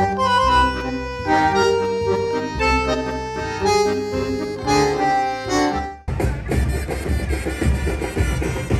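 Accordion-led background music with held notes over a beat. About six seconds in, it cuts off abruptly and a denser, noisier sound takes over.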